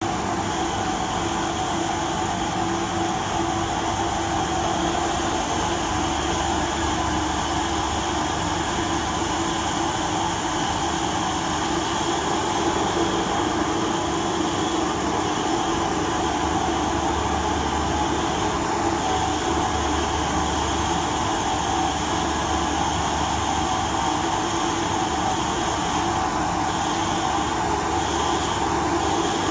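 Presoil E-1000 soybean extruder running under load, its large electric motor and screw barrel making a steady, continuous machine drone with a constant hum.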